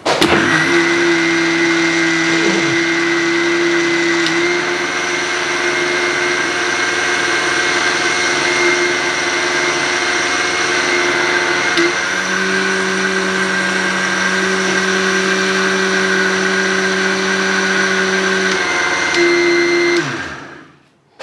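Electric mixer grinder running steadily under a liquid load, blending oil, eggs and water. Its motor pitch steps slightly twice, and it switches off near the end and spins down.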